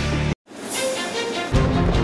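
Background theme music. It cuts out for a moment about a third of a second in, comes back without its bass, and the full music with bass returns about one and a half seconds in.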